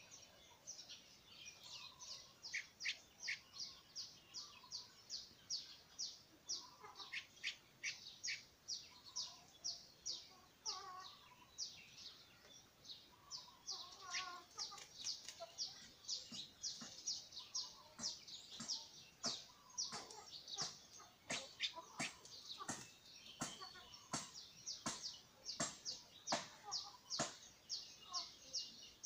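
Young streak-eared bulbul calling: short, high chirps repeated about three times a second, on and on.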